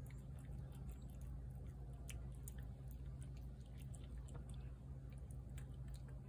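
Cat chewing wet food from a plate: faint, irregular wet clicks and smacks of eating over a steady low hum.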